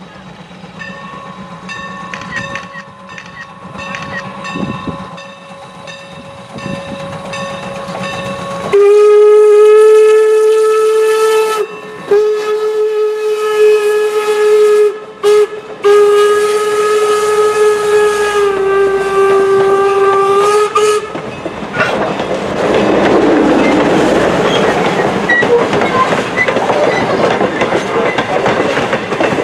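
Steam locomotive whistle blowing the grade-crossing signal, long, long, short, long, with a chord-like tone, after a fainter whistle tone. In the last third the train passes close by with a loud rumble and wheel clatter.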